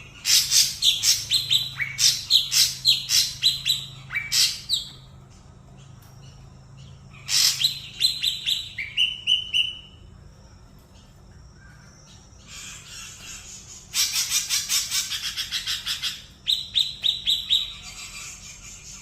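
A young ashy drongo singing: rapid strings of sharp, high chirping notes, many sweeping downward, in phrases a few seconds long with short pauses between.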